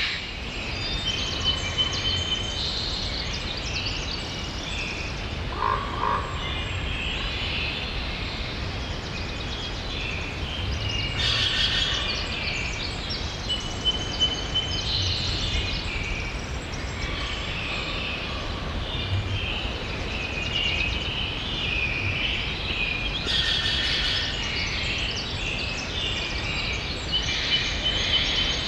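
Chorus of small animals chirping, whistling and trilling over a steady hiss, with two denser clusters of calls about a third and four-fifths of the way through.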